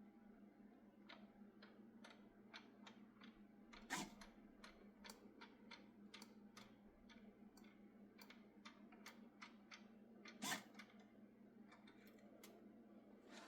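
Faint series of small, irregular clicks, about two a second, with two louder clicks around four and ten seconds in, over a low steady hum.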